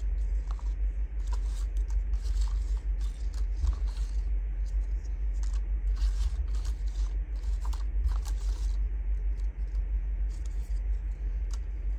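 Paper scraps and card embellishments rustling and scraping as hands sort through a plastic box of paper ephemera and pick out a paper cluster. The rustling comes in irregular bursts that ease off near the end, over a steady low hum.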